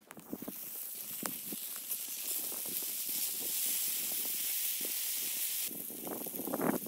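Bacon strips frying in a hot cast-iron pan: a steady sizzle with scattered spitting pops of fat. A little before the end the hiss drops away and the pops come louder and closer together.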